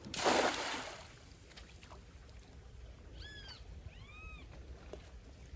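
A cast net splashes down onto the stream, a short rushing splash lasting about a second. About three and four seconds in, an animal gives two short high calls that rise and fall.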